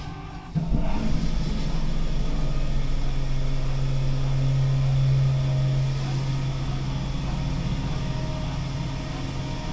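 Artico A1 platform lift's drive motor starting about a second in and running with a steady low hum as the platform travels down to the ground floor.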